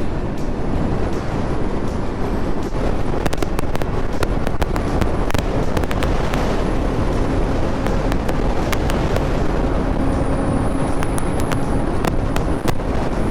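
Honda CB650R's inline-four engine running steadily at road speed, heard through a helmet- or bike-mounted GoPro Hero 7 microphone under a dense rush of wind and road noise. Scattered sharp clicks crackle through it, in clusters about three to five seconds in and again near the end.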